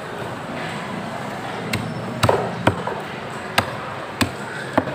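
A long curved fish knife chopping mahi-mahi on a thick wooden chopping block: six sharp chops, irregularly spaced, starting a little before halfway in, over steady background noise.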